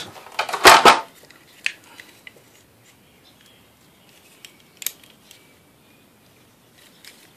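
Wire cutters snipping the copper wires out of an aquarium light: a couple of loud sharp snips a little under a second in, then a few scattered light clicks of wire and metal parts being handled.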